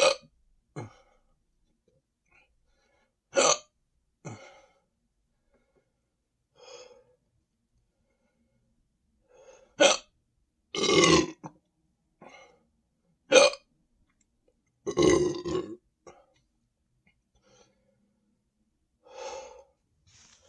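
A person hiccuping and burping from a stomach full of carbonated soda: a string of short, sharp hiccups a few seconds apart, with two longer burps about halfway through and again a few seconds later.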